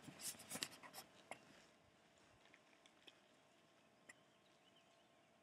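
Faint scratchy clicks and rubbing for about the first second and a half, then near silence with a single small click about four seconds in.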